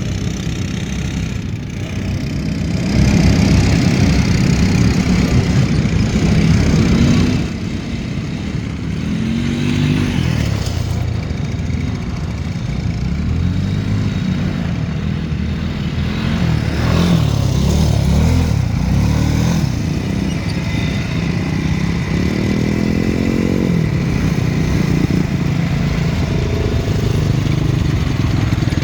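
An ATV's engine running and revving as it is ridden. The pitch rises and falls several times, with a louder stretch a few seconds in.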